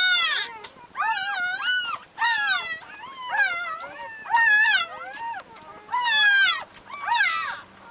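Newborn Labrador retriever puppies crying: a run of high, wavering squeals, each under a second long, coming about once a second.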